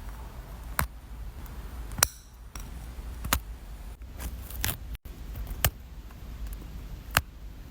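A series of about six sharp clicks or snaps, roughly one every second or so and irregularly spaced, over a steady low background rumble.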